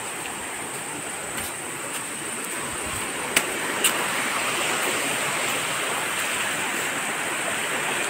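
Shallow rocky stream rushing over stones, a steady watery hiss that grows a little louder about halfway through. Two short sharp clicks just past the middle.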